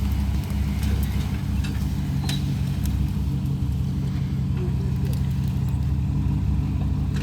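SUV engine running steadily with a low, even note, with a few faint clicks over it.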